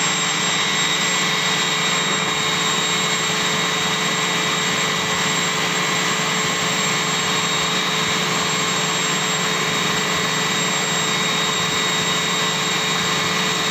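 Steady, unchanging machine drone: a constant hiss with several fixed whining tones running through it.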